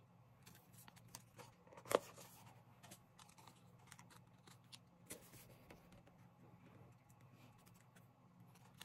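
Faint paper handling: wheel stickers peeled off and pressed onto a glossy sticker-book page, with small scattered ticks and rustles and one sharper click about two seconds in.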